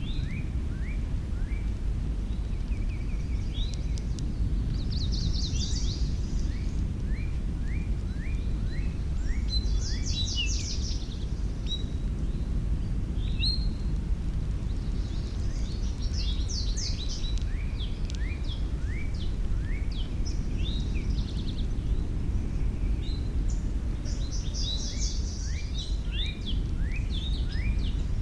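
Songbirds singing: short, repeated downward-sliding chirps with bursts of fast, high trills every few seconds, over a steady low rumble of background noise.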